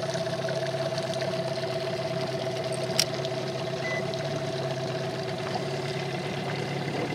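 Small boat's tiller-steered outboard motor running at a steady pitch while the boat is under way, with a single sharp click about three seconds in.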